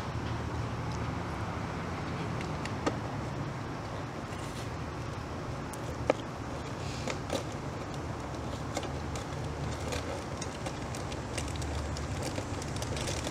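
Steady low outdoor rumble with a few sharp clicks, the loudest about six seconds in.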